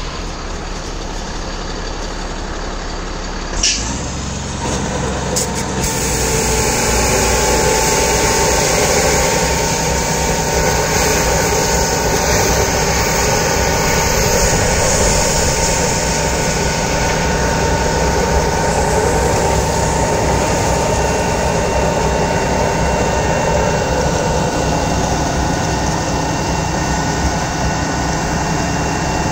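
Drain jetting machine's engine and high-pressure pump running steadily while jetting a blocked road offlet, with the rush of water through the pipe. About four seconds in there is a sharp click, and the running grows louder and deeper as the jet comes under full load.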